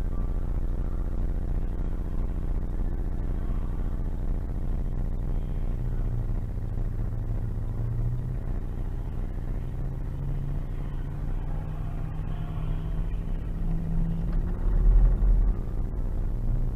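Steady low rumble of a car's engine and cabin heard from its own dash cam as it creeps slowly over snow. A low engine hum rises in pitch in the second half as the car pulls away, and there is a brief louder low rumble about fifteen seconds in.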